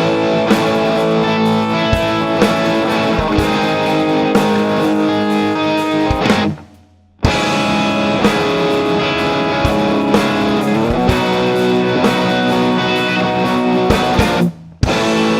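Electric guitar, a Gibson SG Custom through a Marshall YJM head and a Greer Arbuckle Trem tremolo pedal, playing sustained chords over a drum beat. The playing stops briefly about six and a half seconds in and again just before the end.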